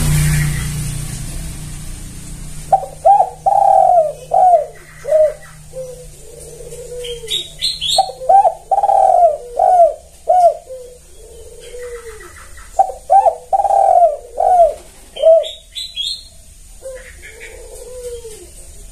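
Spotted dove cooing its song over and over, four phrases about five seconds apart. Each phrase is a quick stuttering run of coos ending in a lower, drawn-out coo. A passing vehicle fades out over the first couple of seconds.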